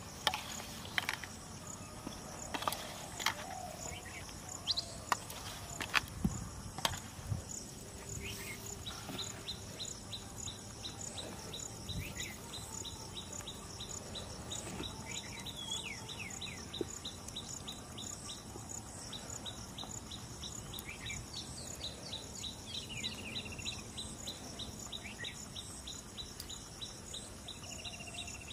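Outdoor pond-side ambience: insects calling steadily, one of them in a fast even pulse from about nine seconds in, with scattered short bird chirps. In the first seven seconds there are several sharp clicks and knocks.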